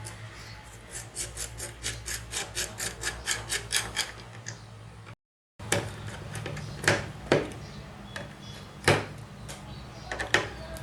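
Small screws being driven with a screwdriver while fitting a laptop's CPU cooling assembly: a fast, even run of ticks, about five a second, then a few separate sharp clicks after a brief cut. A low steady hum runs underneath.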